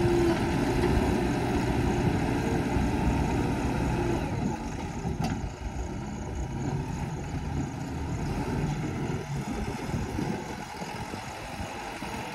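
Heavy diesel engines of a tipper truck and a JCB backhoe loader running hard as the truck climbs a muddy slope. Loud for about the first four seconds, then fainter as the truck pulls away.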